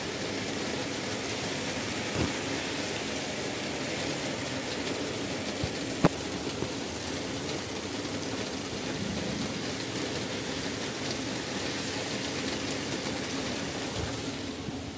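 Steady heavy rain falling, an even hiss, with a few sharp taps: one about 2 seconds in, a louder one about 6 seconds in and another near the end.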